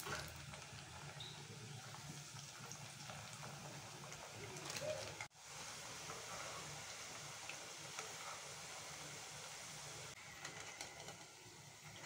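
Thattai frying gently in hot oil in a kadai: a faint, steady sizzle with small crackles, the bubbling having died down as the crackers finish cooking. A few light knocks of a slotted spatula in the pan.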